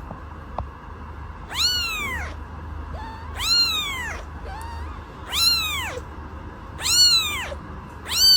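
A cat meowing over and over, a long meow about every one and a half to two seconds, each rising and then falling in pitch, with a couple of softer short mews in between.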